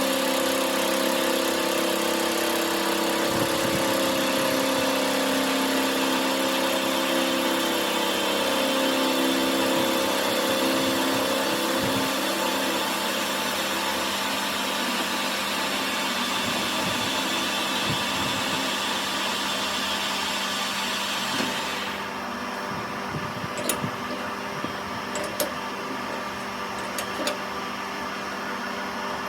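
Metalworking machine tool running steadily, a hum with a dense high hiss over it. The hiss cuts off about 22 seconds in, leaving a lower hum and a few sharp clicks.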